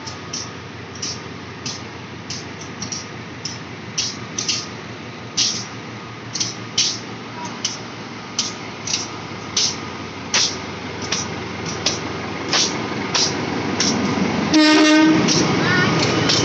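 A series of short sharp high ticks, about one or two a second, then near the end a CC 201 diesel-electric locomotive's horn blasts loudly: the Semboyan 35 signal, sounded to acknowledge the right of way before departure. A heavier low rumble stays loud after the blast.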